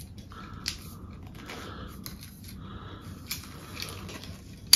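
Carbon fiber travel tripod being handled as its legs are unlocked and folded: light rubbing of the leg tubes and joints with a few soft clicks, and a sharper click near the end.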